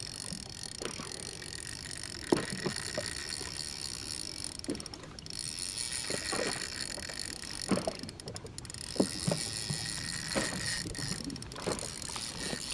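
Shimano Twin Power 5000 SW spinning reel whirring under the pull of a hooked bluefin tuna, the line under heavy load. The whirring stops briefly three times, and there are several light knocks.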